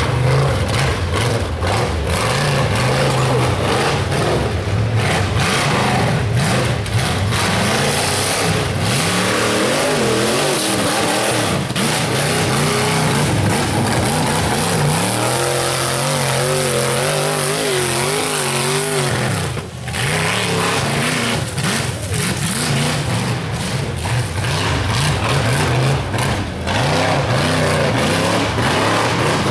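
Rock bouncer buggy's engine revving hard at full throttle up a steep dirt hill, its pitch repeatedly surging and falling as the revs rise and drop. About two-thirds through, the revs drop off briefly before it picks up again.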